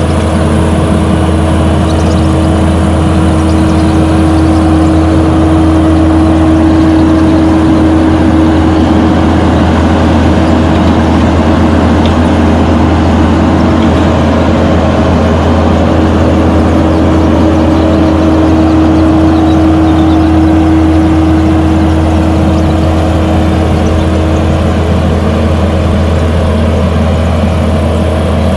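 Kubota skid steer's diesel engine running steadily while it drives a Harley rake attachment through topsoil, with a steady whine over the engine sound.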